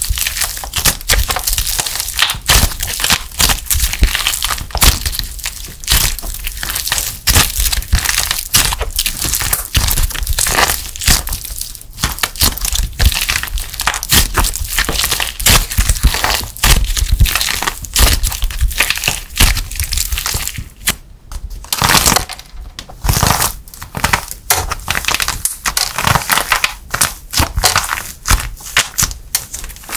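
Soft clay coated in a thin shell of dried plaster being squeezed and torn apart by hand, the plaster crackling and crunching into flakes in a dense run of small sharp cracks. It goes briefly quieter about two-thirds of the way through, then the cracking starts again.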